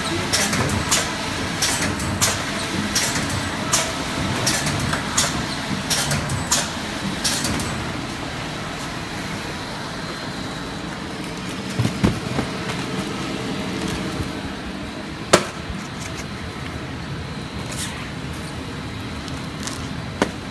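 Side seal shrink wrapper and shrink tunnel running: a steady machine noise with sharp clicks about every 0.7 s for the first seven seconds or so. After that it is mostly the steady running noise, with a few separate clicks, one sharper than the rest about two thirds of the way through.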